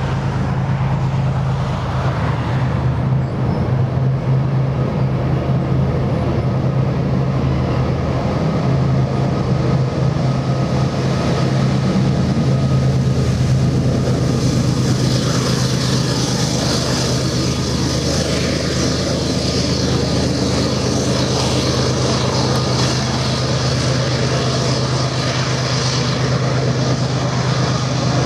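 Diesel locomotives of a heavy Canadian Pacific grain train working hard up a mountain grade, a loud steady low thrumming. From about halfway a hiss from the covered hopper cars rolling on the curve grows louder over the drone.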